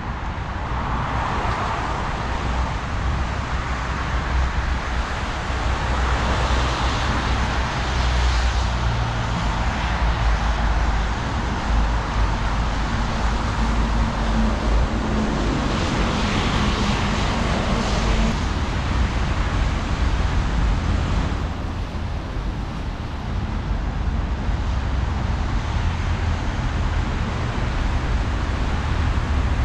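City road traffic: a steady rumble of passing cars, with an engine hum rising and fading in the middle.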